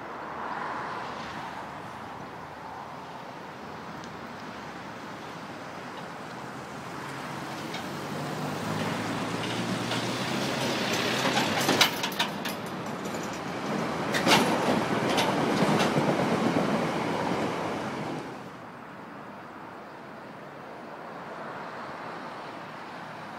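Two coupled Irish Rail Class 2800 diesel multiple units approaching and passing close: a low diesel drone and wheel rumble that swell for several seconds, with a few sharp clicks from the wheels. The sound breaks off suddenly, leaving faint outdoor background.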